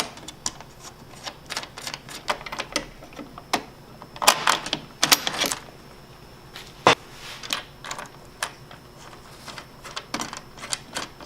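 Irregular clicks and clinks of bolts, nuts and spacers being fitted loosely into a snowmobile bumper's side piece, with a few louder knocks as the parts go into place.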